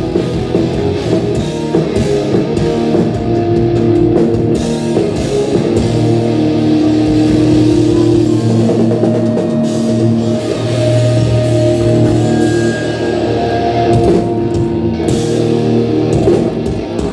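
Live hard rock played loud through guitar amplifiers: distorted electric guitars, bass and drum kit, heard from within the audience. The song stops abruptly at the very end.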